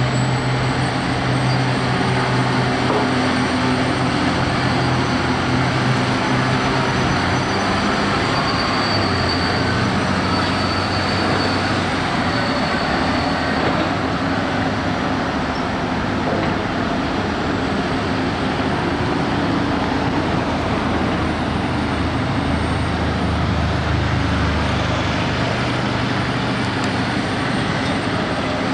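Loaded articulated dump truck's diesel engine running steadily as the truck drives across a gravel site, a low drone that drops lower in pitch about a third of the way through, over a constant wash of traffic noise.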